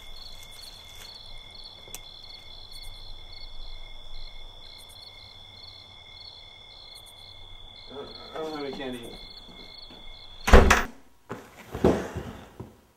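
Crickets chirping steadily, then a door slams shut about ten and a half seconds in and the chirping stops at once; a second, softer thump follows about a second later.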